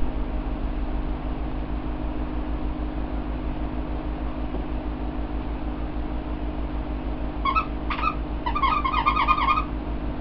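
Squeakers inside fursuit handpaws squeezed by hand: a couple of short squeaks, then a quick run of about a dozen near the end. A steady fan hum runs underneath.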